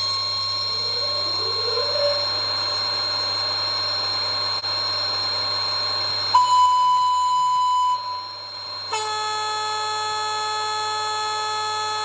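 Sound decoder in an N-scale HXD3C electric locomotive model, playing recorded locomotive sound: a steady electrical whine, then a short high horn note about six seconds in, then a long, lower horn blast from about nine seconds in that cuts off sharply.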